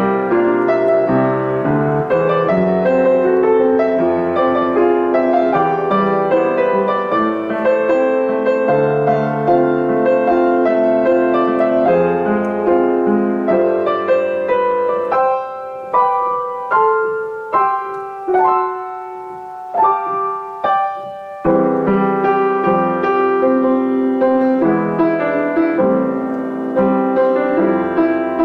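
Solo piano playing a slow, gentle song cover. About halfway through, the playing thins to a handful of separate chords, each left to ring and die away, before the full flowing accompaniment returns.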